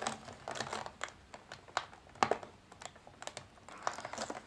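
Plastic blister pack and cardboard backing card clicking and crinkling in quick, irregular ticks as it is worked open by hand along its perforated line.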